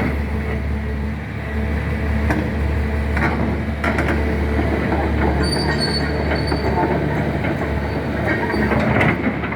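Caterpillar 336 excavator running steadily, with metallic squeals and several clanks from its moving steel parts.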